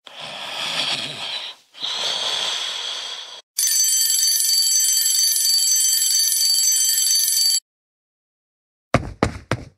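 Cartoon sound effects: two long snores, then a mechanical alarm clock's bell ringing steadily for about four seconds and cutting off abruptly. After a second of silence, quick tapping footsteps start near the end, about four a second.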